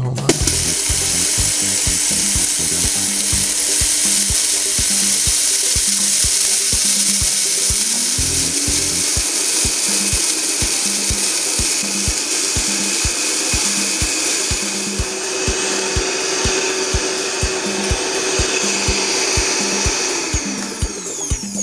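Vitamix TNC 5200 blender running at high speed, grinding dry raw basmati rice into fine flour: a loud, steady whir with a strong hiss. The motor winds down with a falling whine near the end.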